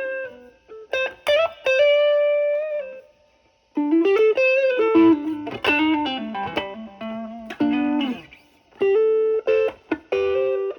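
Electric guitar (Stratocaster) played through an MXR Duke of Tone overdrive pedal into a Marshall Valvestate amp's drive channel: short lead phrases of single notes with string bends, broken by a pause of under a second about a third of the way in.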